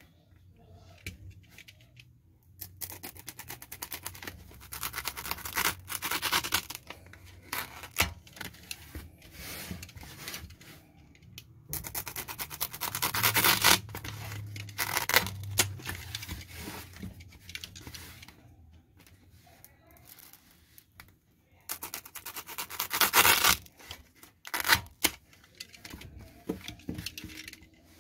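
A utility knife blade sawing through a foam float tube (pool noodle), a scraping, tearing sound in three bouts of a few seconds each. Light clicks and handling noise come between the cuts.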